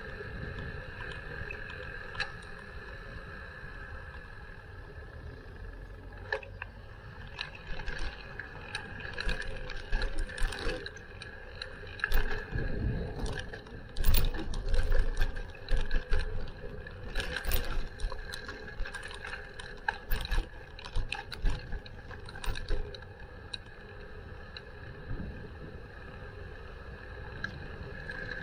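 Bicycle being ridden, with a steady rumble and whine under a run of rattles and knocks from the bike over bumps; the rattling starts a few seconds in, is loudest about halfway through and dies down near the end.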